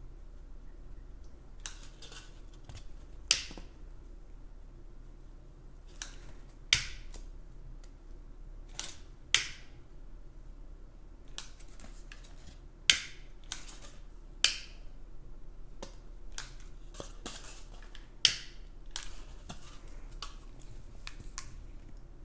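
Sharp, short clicks at irregular intervals, about one every second or two, from hand tools being worked on a polystyrene foam brick.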